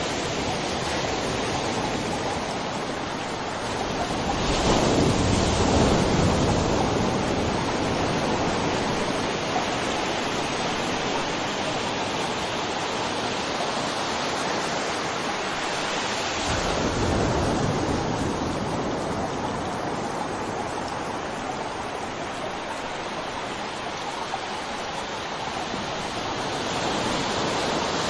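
Steady rush of water, swelling louder twice: about five seconds in and again around seventeen seconds.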